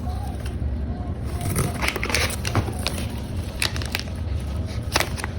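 Packaging being handled during an unboxing: irregular crinkling and crackling with sharp clicks, one louder click near the end, over a steady low hum.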